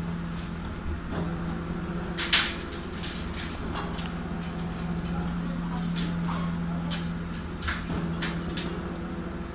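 Japanese rear-loading garbage truck running with a steady hum while metal cage carts and trash bags clank against its rear hopper; one sharp clank about two seconds in is the loudest, with a few lighter knocks later.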